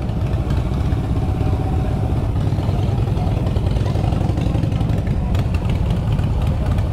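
Kawasaki Ninja sport bike's engine running steadily at low revs while the bike is eased slowly into a parking spot, with a few light clicks about five seconds in.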